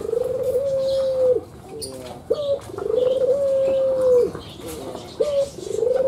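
Ringneck (Barbary) dove cooing: three long coos about every three seconds. Each coo is a short note, then a drawn-out steady coo that drops at the end.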